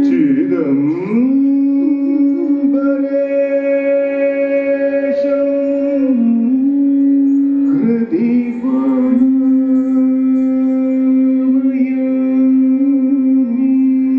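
Carnatic devotional music: long held melodic notes that bend and slide in pitch near the start and again about eight seconds in.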